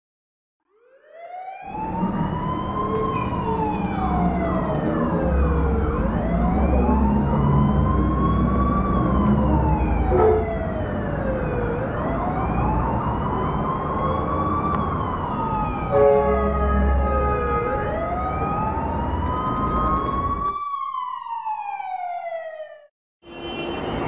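An emergency-vehicle siren wailing over a low engine rumble, its pitch slowly rising and falling about every six seconds. About twenty seconds in, the rumble cuts off and the siren winds down in pitch and fades.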